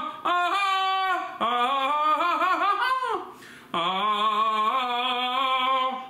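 A man singing a wordless tune in three long phrases, holding wavering notes with short breaths between them.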